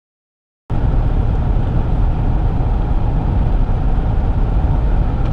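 Silence, then, under a second in, steady road and wind noise of a pickup truck driving at highway speed, heard from inside the cab.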